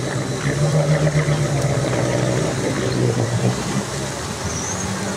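Off-road vehicle engine running at a steady pitch, fading somewhat after about three and a half seconds.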